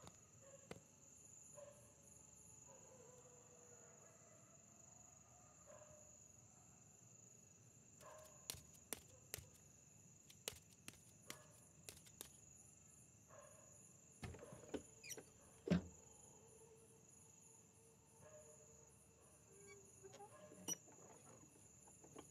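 Faint night ambience of crickets chirping steadily, with several soft clicks and knocks in the middle, the loudest near the two-thirds mark.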